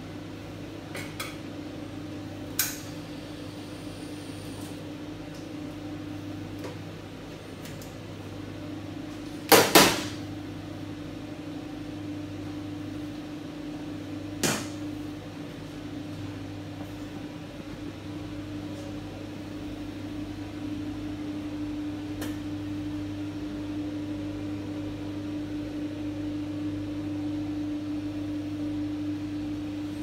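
Commercial espresso machine humming steadily, with a few sharp metal knocks and clatters as the portafilter and cups are handled; the loudest is a double knock about ten seconds in.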